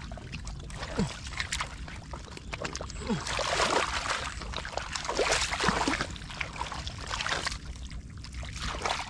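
Bare feet wading through ankle-deep muddy water: repeated sloshing and splashing steps, heaviest in the middle of the stretch, with scattered small wet slaps and ticks.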